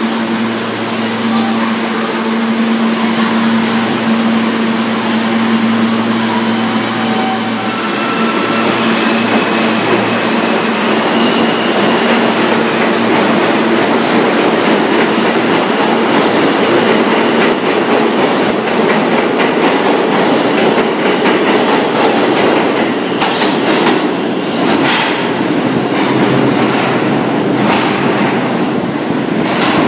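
New York City Subway R160 train pulling out of the station. Its propulsion whine climbs in pitch in steps as it starts to move. Then comes the rising rumble and rapid clicking of the wheels over the rail joints as the cars pass and pick up speed.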